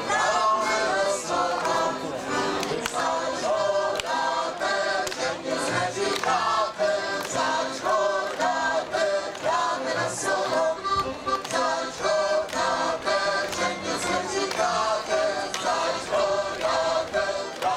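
Moravian folk dance song sung by a group of voices over instrumental accompaniment, with a steady beat about twice a second.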